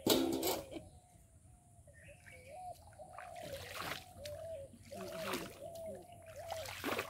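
Pond water splashed by a person's hands and arms while he stands waist-deep: a loud splash at the start, then three softer splashes and trickles over the next few seconds.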